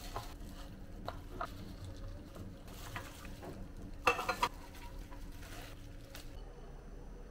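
Plastic cling wrap rustling and crinkling as a rice-and-luncheon-meat musubi is pressed in the can used as its mould, lifted out and unwrapped. A cluster of sharper crackles comes about four seconds in.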